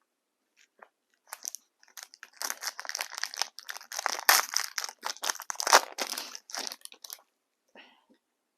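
A trading-card pack wrapper being torn open and crinkled by hand, a dense crackling that builds for about six seconds and then stops, with a few faint ticks near the end.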